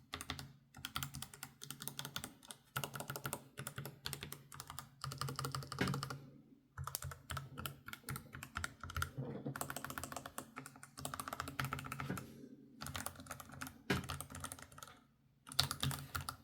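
Asus ROG Falchion RX Low Profile keyboard with red linear switches, keys tapped in quick runs broken by short pauses. The clack is the plastic keycaps hitting the aluminium base; the switches themselves are silent.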